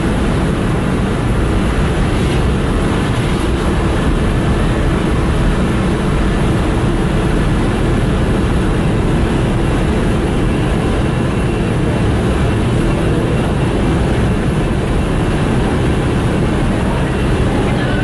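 Loud, steady machinery noise aboard a ship, the main engine running in the background. It holds the same dense, even level throughout, with no distinct knocks or changes.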